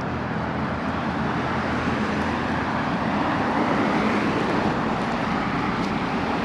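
Steady vehicle and road noise with a low engine hum, swelling slightly a few seconds in.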